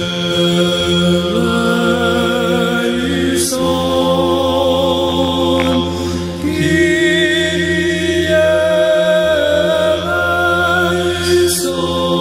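Greek Orthodox Byzantine chant: unaccompanied voices sing a winding melody over a steady held low drone (the ison).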